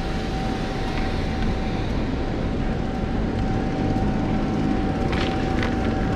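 A steady mechanical drone: a constant hum held at one pitch over a low rumble, with a few light clicks near the end.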